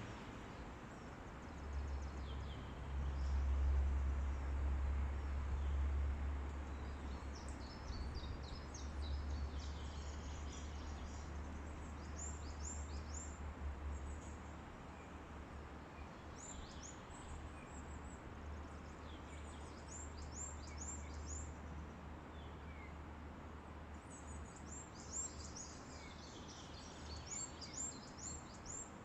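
Wind blowing through a forest, with a low rumble of wind on the microphone that is strongest in the first half. Small birds sing over it in several bouts of quick, high, falling notes, more often near the end.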